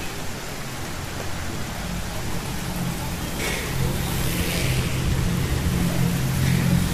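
Steady rain falling on a wet street, with vehicles driving along the flooded road. From about halfway, an engine hum grows louder as one comes close, and its tyres hiss through the water.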